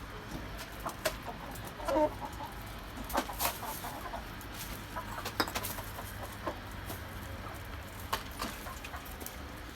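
Chickens clucking in short, scattered calls, mixed with light clicks.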